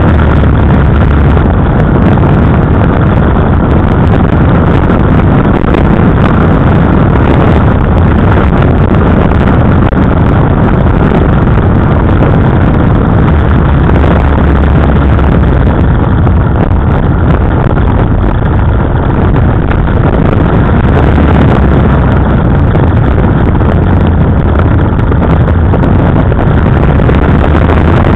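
KTM 990 Adventure's V-twin engine running steadily under way, heard loud and close from on the bike itself, with no sharp revving.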